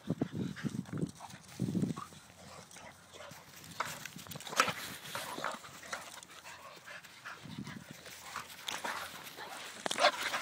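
An Alapaha Blue Blood Bulldog and a Staffordshire Bull Terrier play-fighting: low growling in the first couple of seconds, then scuffling with sharp clicks and snaps about halfway and again near the end.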